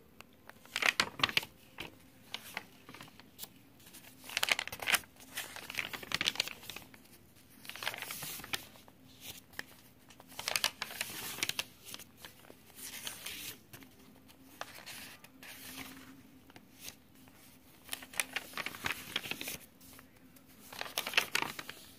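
Paper pages of a handmade junk journal rustling and crinkling as they are turned and smoothed flat by hand, in a series of rustles at irregular intervals.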